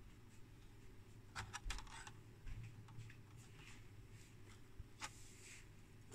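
Near silence with a few faint clicks and rustles of a small circuit board being handled and turned over in the fingers, a cluster of them about a second and a half in and one more near five seconds.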